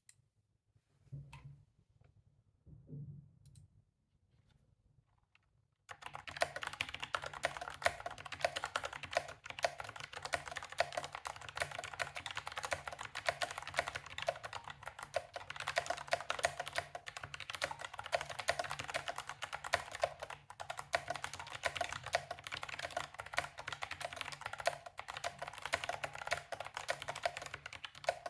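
Fast, continuous typing on a Perixx Periboard 335 mechanical keyboard with stock Kailh Choc Brown low-profile tactile switches. It starts about six seconds in, after a few soft knocks.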